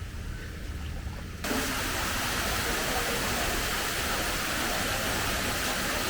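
Steady rushing hiss of falling water that starts abruptly about a second and a half in and holds even, after a quieter low rumble.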